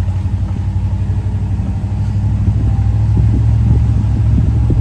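Pickup truck driving slowly over a bumpy road, heard from on board: a steady low rumble of engine and road noise that gets a little louder about halfway through.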